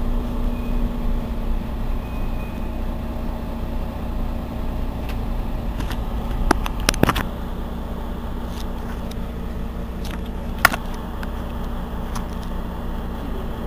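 Mercedes-Benz Citaro C2 city bus engine idling steadily while the bus stands at a stop, heard from behind. A few sharp clicks come about seven seconds in, and a single click follows near eleven seconds.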